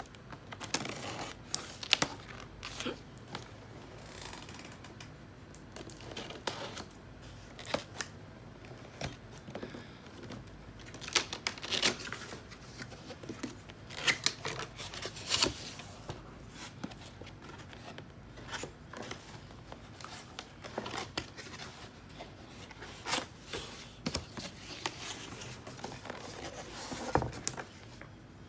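Shipping box being opened by hand: irregular cutting, tearing and rustling of cardboard and packaging, with scattered sharp clicks and knocks.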